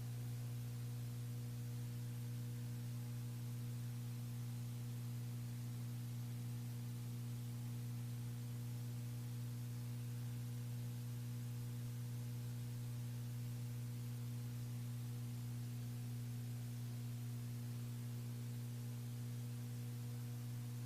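Steady low electrical hum, a few pitches stacked together, over a faint even hiss; it does not change.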